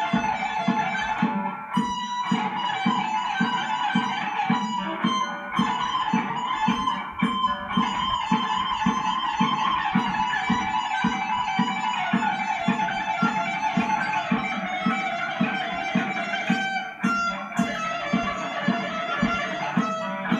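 Electric guitar played with fast alternate picking, rapid runs of single notes with a few short breaks between phrases, over a steady low pulse about twice a second.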